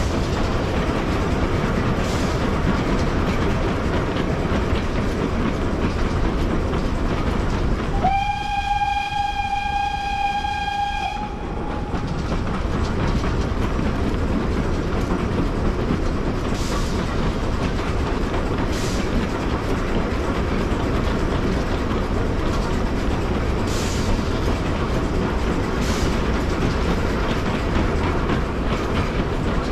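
Steam train hauled by Setesdalsbanen's Lok 6 running steadily along the track. About eight seconds in, the locomotive's whistle blows one steady note for about three seconds.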